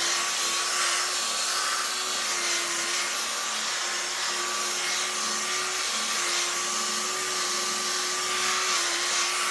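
Rotary buffer running steadily, buffing compound on a clear-coated car panel: a constant motor whine over a hiss, its pitch dipping slightly a couple of times.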